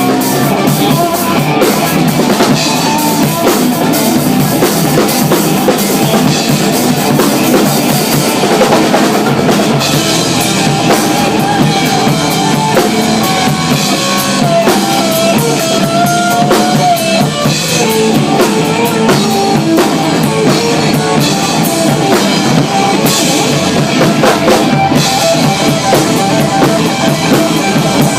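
Live rock band playing a song, a full drum kit keeping a steady beat under a wavering lead melody line.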